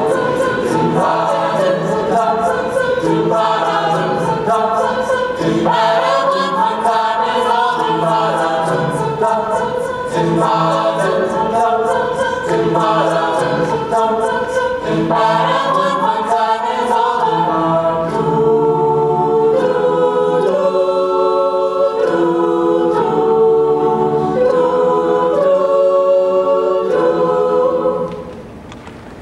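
Mixed a cappella group singing a blues number in close multi-part harmony, with a steady crisp beat ticking under the voices through the first half. The singing ends on a final chord shortly before the end.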